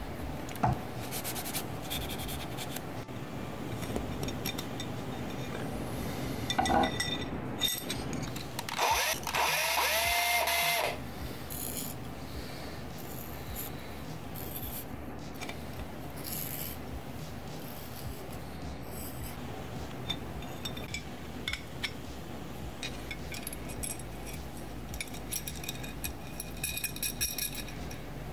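Hand tools and small metal parts being handled on a wooden tabletop: scattered clicks and taps of screws, a nut and a screwdriver against aluminium brackets. About nine seconds in there is a louder burst of rubbing with a squeak in it, lasting about two seconds.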